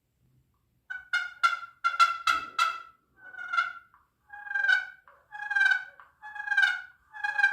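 Homemade wooden turkey call, turned on a lathe, played in a series of turkey yelps. About a second in comes a quick run of six short, sharp notes, followed by slower, longer yelps roughly one a second.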